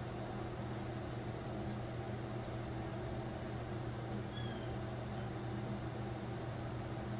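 Steady low hum of running equipment, with a brief high chirp about four seconds in and a faint tick soon after.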